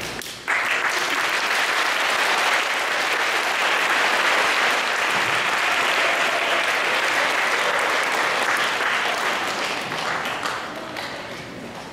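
Audience applauding, starting abruptly about half a second in and dying away near the end.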